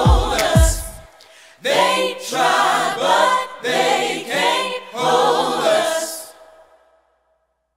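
Choir of mixed voices singing together, over a deep thumping beat for the first second. After a brief break the voices carry on unaccompanied in several sung phrases that die away about seven seconds in.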